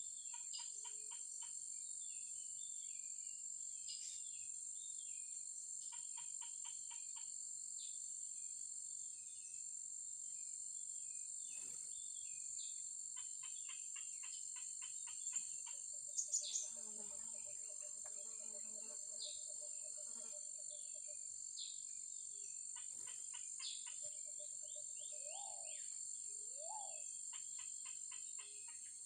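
Blue-crowned hanging parrots chirping in repeated quick trains of short, high notes over a steady high-pitched insect drone. A few sharp clicks come about halfway through.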